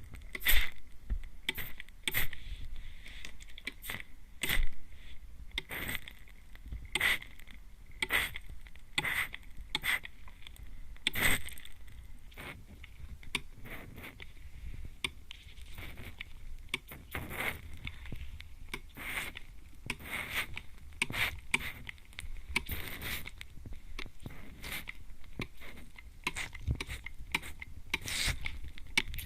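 Trigger mist spray bottle spritzing at close range, a string of short, hissing squirts about one a second, some louder and sharper than others.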